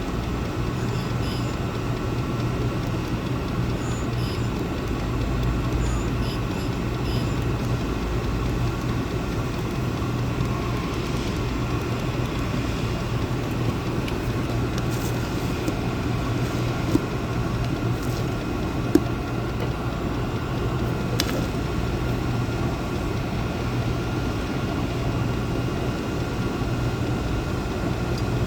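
Portable diesel air heater running: a steady hum of blower and burner with a constant low tone, and a few faint clicks now and then.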